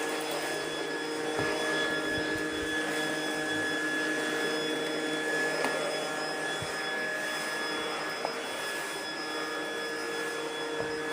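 Hyundai X50 robot vacuum cleaner running steadily while cleaning: an even motor whir with several constant whining tones, and a faint click about eight seconds in.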